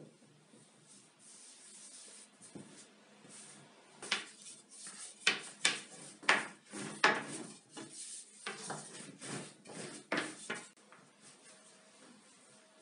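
A long, thin wooden rolling pin (oklava) rolling a disc of dough thin on a floured tabletop. There are about a dozen quick back-and-forth rubbing strokes, starting about four seconds in and stopping shortly before the end, after quieter handling of the dough.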